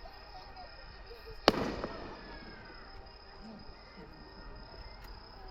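A single firework shell bursting with one sharp bang about a second and a half in, its rumble trailing off over the next half second, over a steady high chirring of insects and a low murmur of voices.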